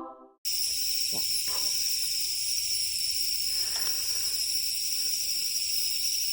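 Chorus of crickets and other night-singing insects, a steady high-pitched trilling that sets in about half a second in.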